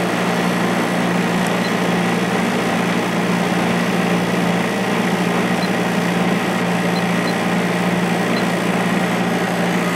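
Coronado Duchess 50 window air conditioner running, its Copeland reciprocating compressor and fan giving a steady low hum. The compressor, rough-running and vibrating at start-up, is settling into smoother running.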